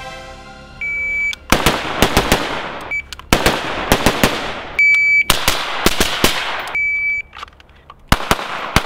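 An electronic shot-timer beep, each time followed by a fast string of about five gunshots: two, two and one fired at two targets in the collateral drill. The shots come first from an AR-style carbine and, near the end, from a pistol. The beep-and-string pattern happens about four times.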